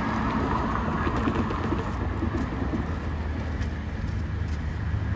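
Union Pacific diesel freight locomotive approaching slowly, a steady low engine rumble that grows a little stronger near the end, over a wash of road traffic noise.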